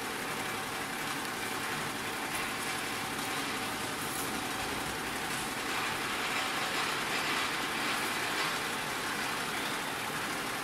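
Ten-head, nine-needle Butterfly multi-head embroidery machine stitching at about 750 stitches a minute: a steady, rapid mechanical clatter of the needle bars and hooks, growing a little louder partway through.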